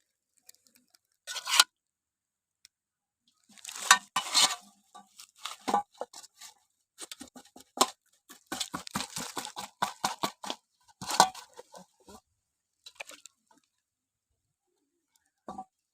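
Close-up eating sounds: a crunchy snack bitten and chewed in short bursts of crackling, with quiet gaps between bites.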